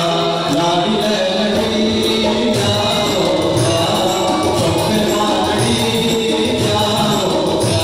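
A male singer sings a Balochi song into a microphone over keyboard and hand-drum accompaniment, with a steady drum beat.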